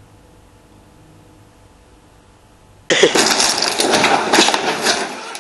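Faint steady room hum, then about three seconds in a sudden loud rough noise starts, with scattered knocks and clatter running through it.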